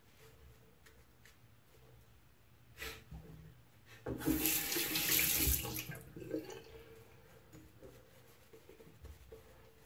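Bathroom tap running briefly, for about two seconds starting about four seconds in, for water to add to the shaving lather. Shortly before it comes one short knock.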